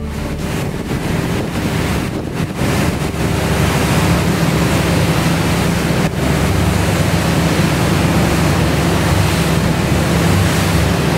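Motorboats running at speed through choppy sea: rushing water and spray with wind buffeting the microphone, over a steady low engine drone.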